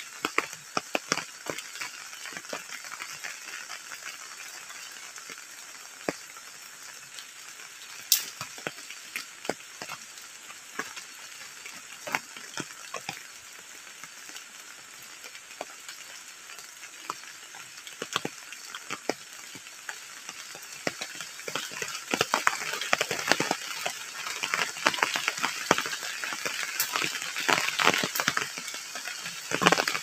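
Heavy rain falling, a steady hiss full of sharp drop ticks, getting louder and denser about two-thirds of the way through.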